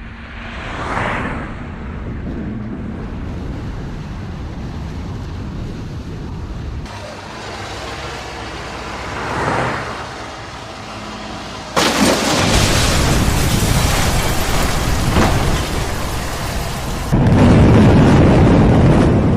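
Heavy rumbling and crashing of a building collapsing, in several cut-together clips. The sound changes abruptly three times, growing louder and noisier about twelve seconds in and again near the end.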